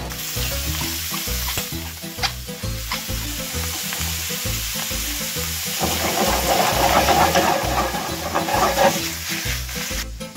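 False morel mushrooms sizzling as they fry in a pan, stirred and scraped with a wooden spatula. The frying grows louder for a few seconds past the middle. Background music with a steady low beat runs underneath.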